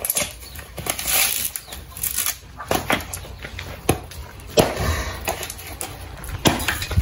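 A bolo knife chopping into a coconut shell to split it: a series of sharp, irregular knocks, roughly one to two a second.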